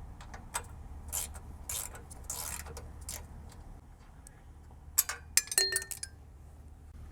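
Hand tools working a bolt and nut on a mower's metal frame: scattered light metallic clicks and ticks, with a quick cluster of ringing metal clinks about five seconds in.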